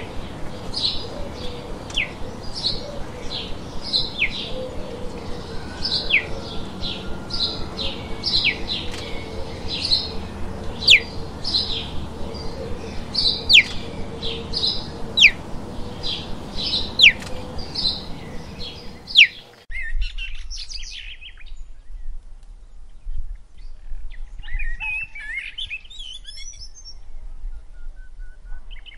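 Wild birds calling: a sharp falling whistle repeats about every two seconds among shorter, higher chirps over a steady low hum. About two-thirds of the way through, the sound cuts abruptly to quieter, scattered bird chirps.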